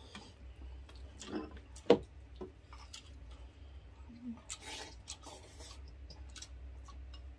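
Eating at a table: wooden spoons scraping and clicking against bowls, and chewing, with one sharp click about two seconds in.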